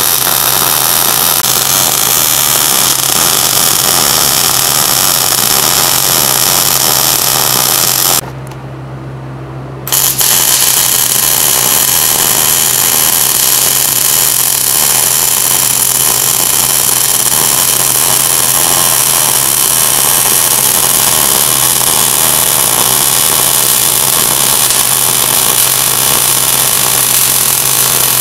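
MIG welding arc crackling steadily as the rod eye is welded back onto a hydraulic cylinder rod. The arc stops for about a second and a half some eight seconds in, leaving a steady low hum, then starts again and stops near the end.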